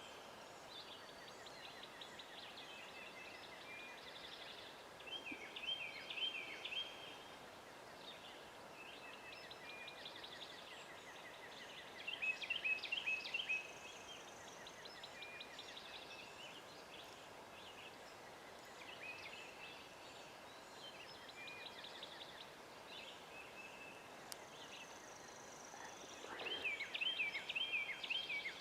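Wild turkey gobbling three times, in short rattling bursts spaced well apart, the last near the end, with smaller birds calling between the gobbles.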